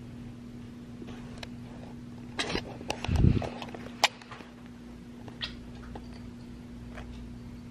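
A pet cat's short vocal sound with rustling near the middle, then a heavy handling bump and a sharp click just after, over a steady low hum.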